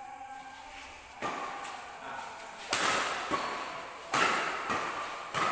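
Badminton rackets striking the shuttlecock in a fast rally: four sharp hits about a second and a half apart, each echoing in a large hall.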